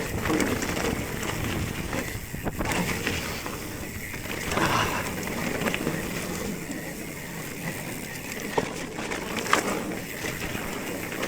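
Specialized Stumpjumper mountain bike riding down a dirt trail: tyres rolling over rough, loose ground and the bike rattling, with a couple of sharp knocks near the end.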